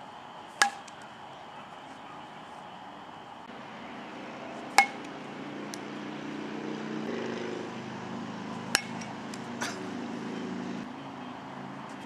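Metal youth baseball bat hitting pitched balls: sharp pings with a brief ring, about every four seconds, the loudest about five seconds in. A low steady hum sits underneath through the middle.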